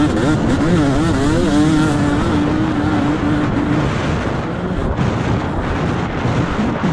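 Motocross dirt bike engine under throttle, its pitch rising and dipping for the first second or so, then holding a steady high rev for a couple of seconds before the tone breaks up into rougher noise.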